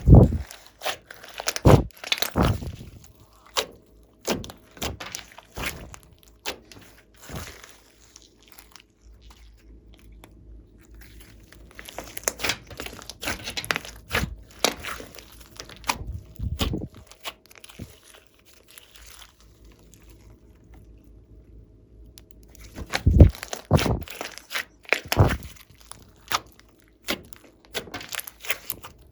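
Glossy slime being squished and stretched by hand, giving irregular runs of sticky crackles and pops with quieter pauses between.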